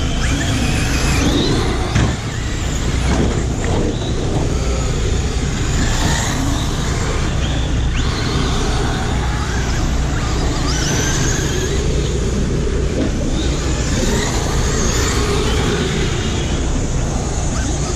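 Several radio-controlled cars racing on a dirt oval, their motors whining up and down in pitch as they speed up and slow down. There is a single knock about two seconds in.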